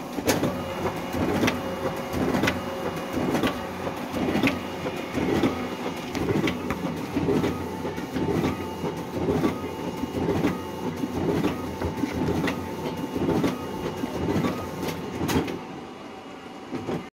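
Ricoh DX 2430 digital duplicator running a print job on thick envelopes: a steady mechanical hum with a regular clack about once a second as each envelope feeds through the drum. The clacks stop near the end as the run finishes.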